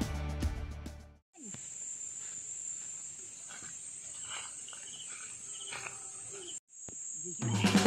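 Background music cuts off about a second in, leaving the field's own sound: a steady, high-pitched insect drone, crickets or cicadas, with a few faint chirps. The drone breaks briefly near the end, and the music comes back.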